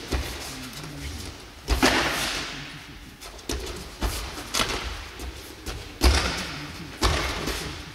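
Irregular sharp knocks and thuds of a dusack sparring bout, the practice sabres striking and feet stamping on the mat, about seven in all, each with a short echoing tail; the loudest comes about six seconds in.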